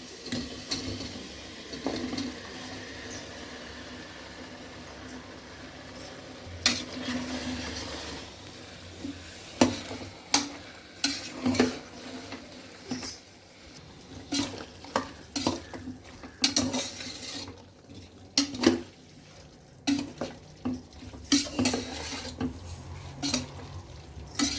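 A metal spoon stirring chopped mushrooms into a sizzling onion-tomato masala in a pressure cooker pot. A faint steady sizzle, then from about ten seconds in, frequent irregular clinks and scrapes of the spoon against the pot.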